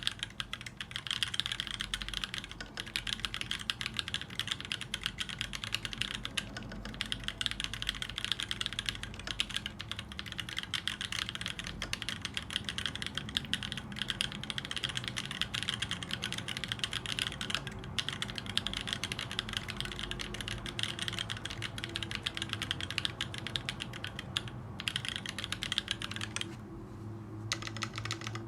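Continuous fast typing on a TGR Alice mechanical keyboard fitted with lubed Tribosys 3204 tactile switches, Gsus springs and lubed stabilisers: a dense, irregular run of key clicks and bottom-outs that eases off briefly near the end.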